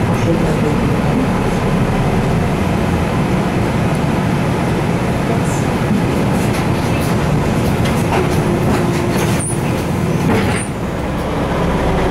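A MAN NL273 Lion's City city bus heard from inside the passenger cabin while driving: a steady engine hum and road noise, with light rattles and clicks in the second half.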